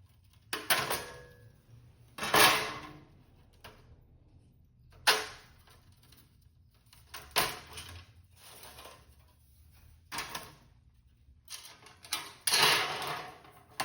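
Cut pieces of 16-gauge sheet steel clanking and scraping as they are handled, about six separate clanks a couple of seconds apart, the first leaving a short metallic ring.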